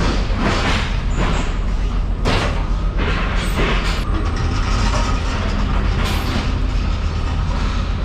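Electric ride-on pallet truck hauling a stack of plastic crates out of a refrigerated trailer, with repeated rattles and clatters of the load over a loud, steady low machine hum.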